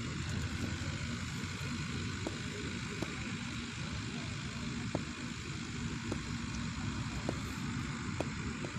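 Steady low rumble and hiss of outdoor background noise at a floodlit cricket ground, with a few faint ticks.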